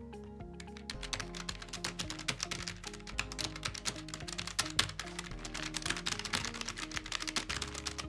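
Fast typing on a Logitech G915 Lightspeed keyboard with low-profile GL Linear switches: a dense, continuous run of key clacks. Background music with steady held notes plays underneath.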